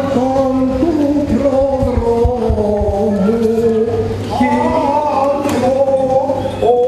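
Byzantine chant: a male voice singing slow, melismatic lines with long held notes.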